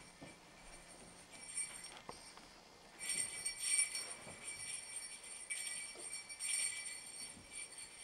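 Sleigh bells jingling: faint shakes at first, then louder rhythmic shaking from about three seconds in.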